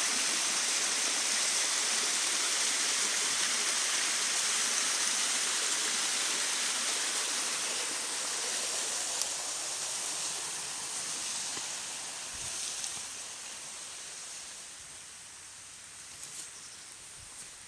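Waterfall water rushing in a steady hiss, fading gradually over the second half, with a few faint clicks near the end.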